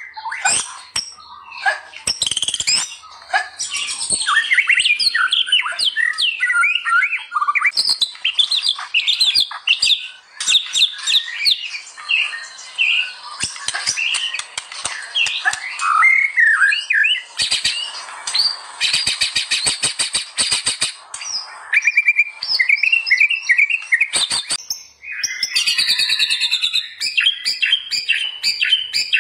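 White-rumped shama (murai batu) singing a long, fast, varied song of whistled phrases and chatter, with a rapid rattling passage about two-thirds of the way through and a run of repeated notes after it.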